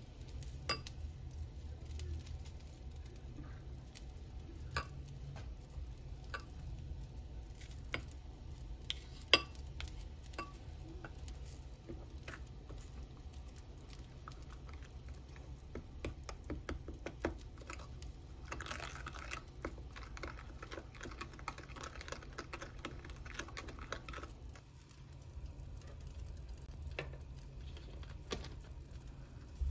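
Kitchen cooking sounds: scattered clicks and knocks of utensils against dishes and pans, one sharper knock about nine seconds in, and a few seconds of hissing noise about two-thirds of the way through, over a steady low hum.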